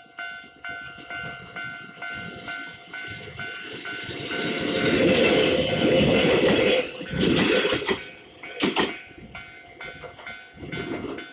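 Railway level-crossing warning bell clanging in a steady repeating beat, about two strikes a second. About four seconds in, a Kintetsu train passes close over the crossing and its wheels on the rails drown the bell out. There is a sharp crack a little under nine seconds in.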